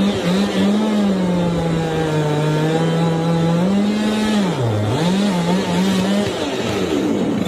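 Chainsaw engine running at high speed, its pitch sagging sharply about five seconds in and recovering, then dropping away near the end.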